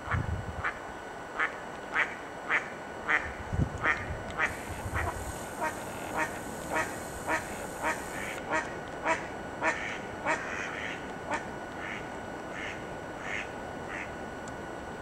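A duck quacking over and over in a steady series, about two quacks a second, the quacks thinning out and fading after about ten seconds.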